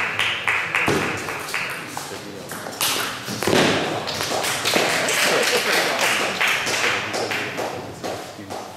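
Repeated sharp taps of table tennis balls against bats, tables and floor, irregularly spaced, with voices in the background.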